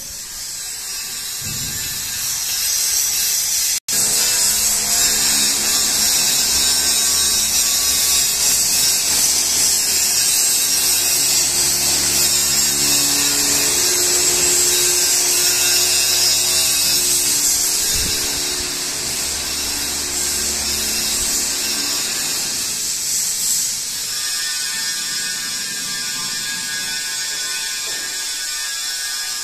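Background music with held notes that change pitch every few seconds over a steady high hiss, cutting out for an instant about four seconds in.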